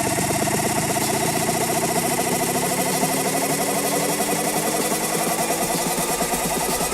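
Electronic dance music build-up: a fast, buzzing synth pulse with a tone that slowly rises, without vocals.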